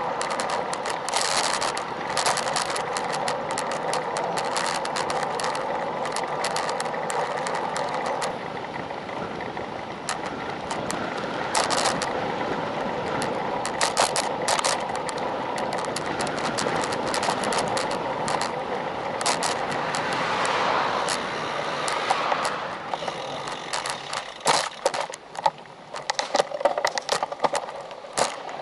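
Wind and tyre noise from a road bike rolling along a paved road, picked up by a bike-mounted action camera, with frequent rattling clicks from the bike. Near the end it gets quieter and breaks into a series of separate clicks and knocks as the bike slows.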